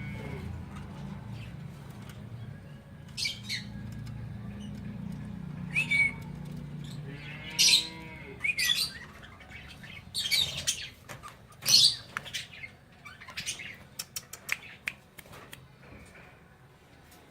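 Cockatiels giving short, harsh squawks and chirps, a dozen or so scattered calls that are loudest in the middle of the stretch. A low steady hum sits under the first half and fades out.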